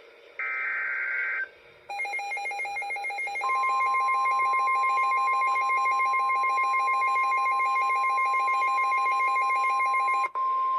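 NOAA Weather Radio SAME digital header burst, a short screech of data tones, shortly after the start. It is followed about two seconds in by a rapid pulsing electronic alert beep. About three and a half seconds in, the steady 1050 Hz warning alarm tone joins in, signalling that a warning, here a severe thunderstorm warning, is being broadcast. The pulsing beep cuts off suddenly near the end while the steady tone continues.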